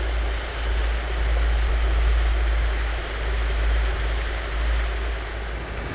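Wind buffeting an outdoor camcorder's microphone: a low rumble with a hiss over it, swelling and fading.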